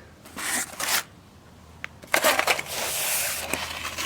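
Firework packaging handled and moved: rustling, crinkling and scraping, with a short burst about half a second in, a click, then a longer stretch of crinkling from about halfway through.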